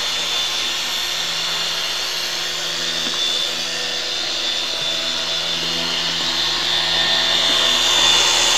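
Handheld electric sander running steadily on a sailboat's fiberglass hull, an even motor whirr with a constant pitch.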